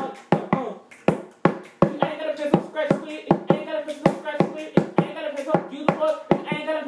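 A voice singing a wordless melody, held notes with a slight wobble, over sharp hand-struck beats about twice a second keeping time.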